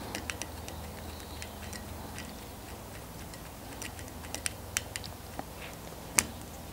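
Irregular sharp clicks and ticks from a bowstring serving jig as it is turned by hand around the string, winding on serving thread. The loudest click comes about six seconds in.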